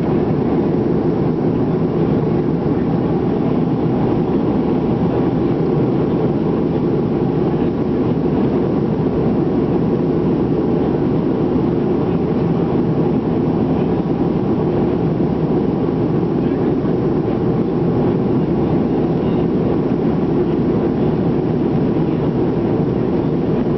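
Cabin noise of a Boeing 737-300 in flight, heard from a window seat over the wing: a steady, even rush of engine and airflow noise that does not change.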